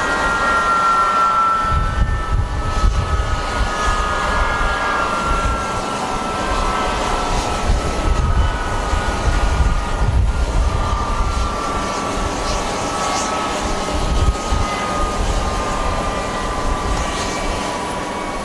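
Airliner's engines whining, their pitch slowly falling, with gusty strong wind buffeting the microphone.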